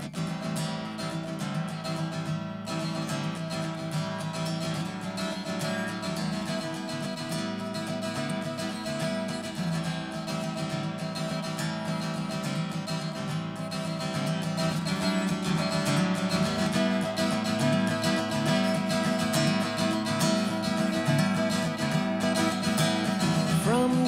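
Steel-string acoustic guitar played solo as an instrumental introduction, ringing chords and picked notes without a break, growing louder about halfway through.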